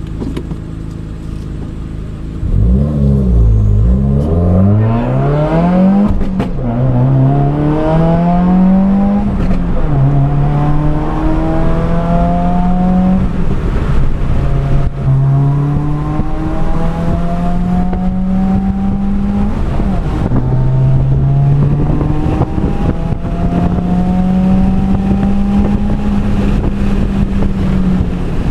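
2015 Subaru WRX's turbocharged 2.0-litre flat-four engine under hard acceleration on track. Its note revs up sharply about two and a half seconds in, then climbs and falls back again and again as the car goes through gear changes.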